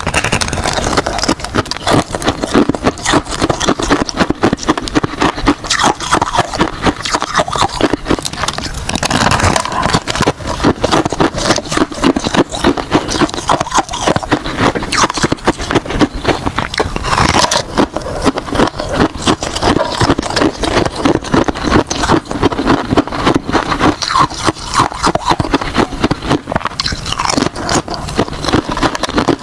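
Ice being bitten and chewed close to the microphone: a continuous, loud run of rapid crunching and crackling cracks.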